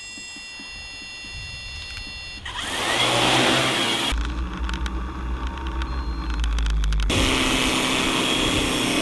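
Quadcopter's electric motors whining as the propellers turn slowly, then spinning up with a rising rush of propeller noise about two and a half seconds in as it lifts off, carrying a loaded sprayer. A deep low rumble covers it for about three seconds midway, then the steady propeller noise of the hovering craft returns.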